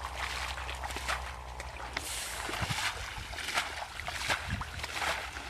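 Water sloshing and trickling with scattered small knocks and clicks, as when a fishing net is handled in shallow water.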